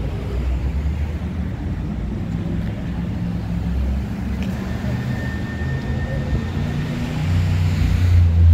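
Steady low rumble of downtown street traffic, growing louder near the end, with a faint thin whine in the middle.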